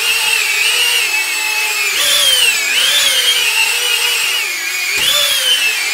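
Nano Tornado ducted-fan drone's motors whining as it flies, the pitch wavering up and down as the motors adjust. Twice, about two seconds in and near the end, a knock as it bounces off a wall, each followed by a swing up in pitch.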